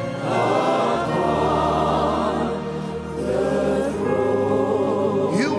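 Live gospel worship music: a choir and congregation singing held notes over sustained keyboard chords.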